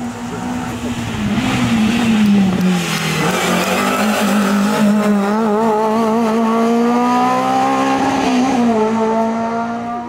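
Small hatchback rally car's engine under load through a hairpin: the revs drop about two to three seconds in as it slows for the bend, then climb steadily as it accelerates out and away.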